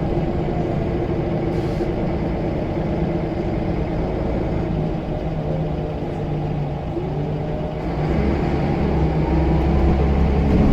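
Scania L94UB bus engine running with its turbocharger whistling. The engine is lower and steady through the middle, then grows louder about eight seconds in as the turbo whistle rises with it.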